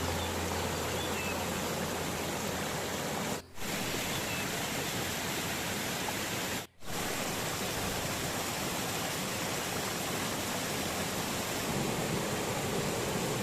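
Waterfall rushing: a steady, even roar of falling water, briefly cut out twice.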